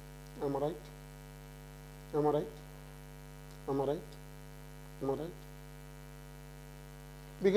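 Steady electrical mains hum, a low buzz with a ladder of even overtones. A few short spoken syllables break in about every one and a half seconds.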